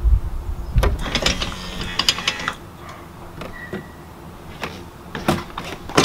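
A series of clicks and knocks from the RV's entry door latch and handle being worked from inside, with the door unlatching and swinging open near the end.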